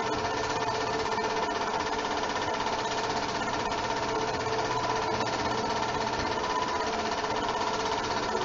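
8mm film projector running: a steady mechanical whir and clatter from the projector's motor and film transport.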